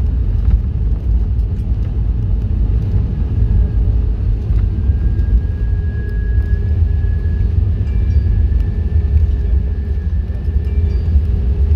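Steady low rumble of an Airbus A320 heard from inside the passenger cabin, with a thin steady whine coming in about four and a half seconds in.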